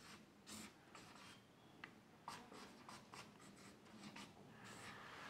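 Faint whiteboard marker strokes, a quick run of short scratches as a line of handwriting goes onto the board.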